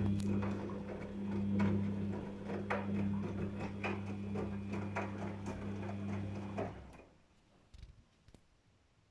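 Daewoo DWD-FT1013 washing machine running with a steady electric hum and irregular clicking and rattling, which cuts off suddenly about seven seconds in; two faint clicks follow near the end.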